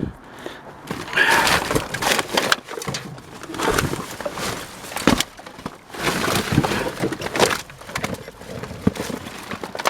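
Junk being rummaged through and shifted in a dumpster: irregular scraping, rustling and knocks in uneven bursts.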